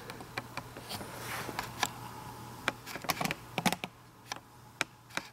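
Scattered light clicks and taps at irregular intervals, over a steady low hum.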